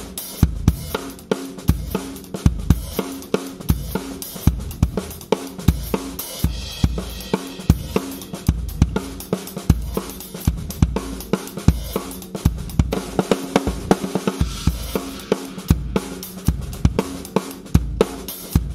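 Acoustic drum kit played in a steady groove of bass drum, snare, hi-hat and cymbals, picked up by a Yamaha EAD10 mic/trigger with its Compressor scene. The compression keeps the hits at a dynamically even, powerful level.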